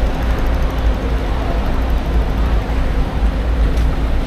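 Car driving along an expressway: a steady low rumble of road and engine noise, with a faint steady hum.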